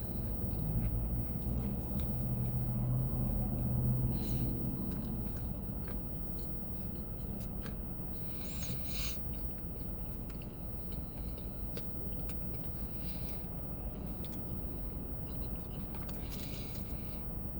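A person biting into and chewing a turkey sandwich with crispy onions, with short crunchy or rustling bursts now and then over a steady low hum inside a car.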